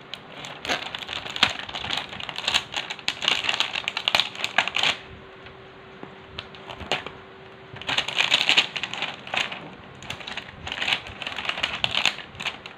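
Clear plastic cover over a toy kitchen set's moulded tray crackling and crinkling as fingers press and pull at it to open it. The crackles come quick and irregular, with a lull of about three seconds midway.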